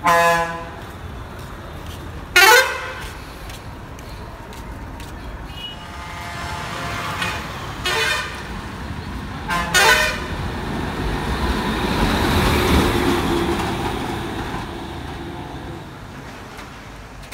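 Private bus's air horn sounding in four loud short blasts over the first ten seconds, then the bus's engine and road noise swelling as it draws near and fading away again.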